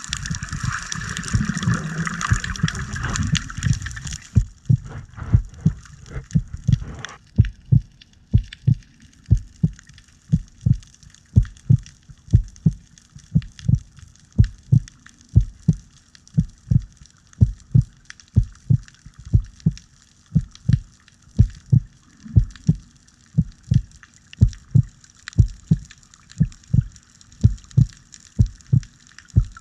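Heartbeat sound effect: steady, evenly spaced low thumps, a couple a second, over a faint underwater hiss. It takes over about four seconds in, after a few seconds of splashing and bubbling as the diver goes under.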